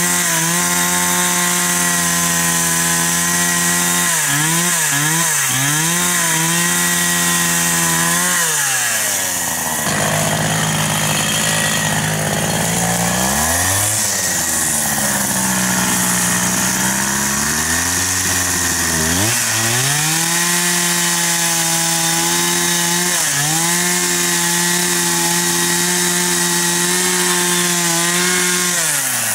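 Gasoline chainsaw running at high revs while cutting a log, its engine pitch sagging and recovering again and again as the chain loads up in the wood.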